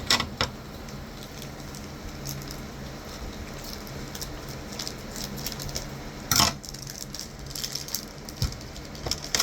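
A small toy blind bag being opened by hand: faint rustling and small clicks, with one loud sharp crinkle about six seconds in.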